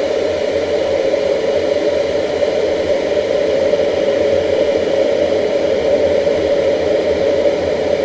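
Kettle of water at a full boil, giving a steady bubbling rumble.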